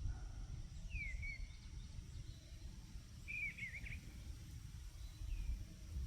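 Small birds chirping faintly, a short call about a second in and a quick run of chirps a few seconds later, over a low rumble of wind on the microphone.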